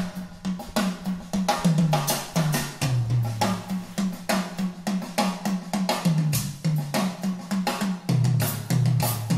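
Drum kit playing a fast groove with many quick strokes, played back through OceanWay Audio Eureka stand-mounted hi-fi loudspeakers and heard in the room.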